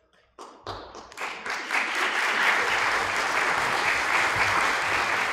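Audience applauding: a few scattered claps about half a second in, swelling within a second into full, steady applause.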